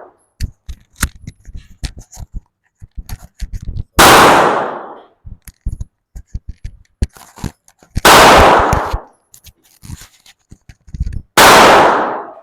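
Three single shots from a 9mm handgun, spaced about three to four seconds apart, each very loud and fading over about a second. Lighter clicks and clinks come between the shots.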